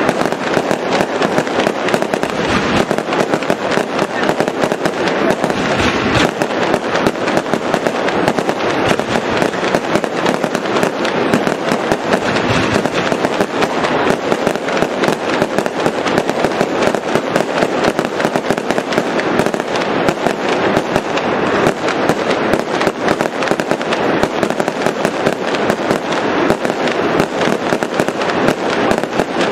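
Aerial fireworks display: a dense, unbroken barrage of rapid bangs and crackles.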